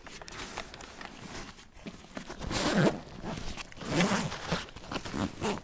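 Zipper on the center compartment of a combat medic pack being pulled open in a few rasping strokes, the loudest about two and a half seconds and four seconds in.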